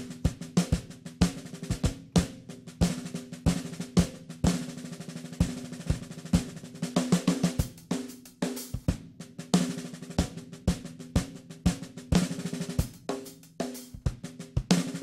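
Acoustic drum kit played with sticks, unaccompanied: quick snare and tom strokes with rapid rolls, a few fast strokes at a time, with bass drum and cymbals mixed in.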